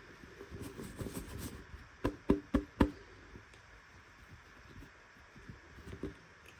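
Four sharp knocks in quick succession, about two seconds in, after some soft rustling.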